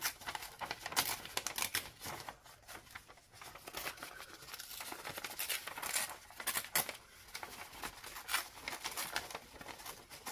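Paper being handled: sheets and small paper pieces rustling and crinkling in irregular bursts.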